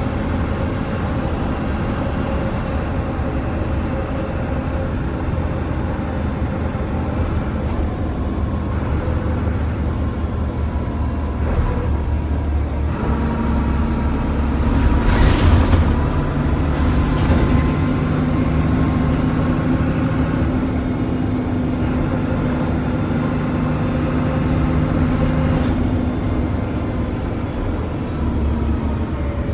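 MAN NL202 diesel city bus with a ZF gearbox running on the road, heard from inside the passenger cabin as a steady drone. The engine note strengthens about halfway through and eases again near the end, with a single knock about 15 seconds in.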